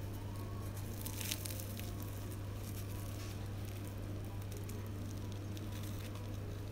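The crisp fried crust of a panada (filled fried bun) crackling as hands squeeze it and tear it open, the loudest crackle a little over a second in. A steady low hum runs underneath.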